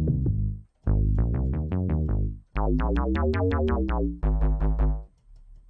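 Drum and bass sample patch from the East West Drum and Bass Construction Kit played in four short phrases: low synth bass tones under rapid, evenly spaced electronic drum hits, with the pitches shifting through the third phrase, then cutting off near the end.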